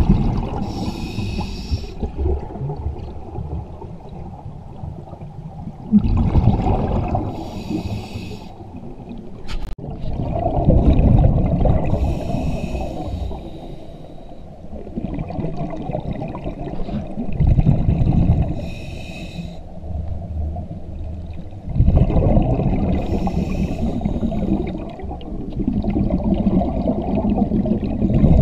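Scuba diver breathing through a regulator underwater: a hiss on each inhale and a loud bubbling rumble of exhaust bubbles on each exhale, repeating about every five to six seconds.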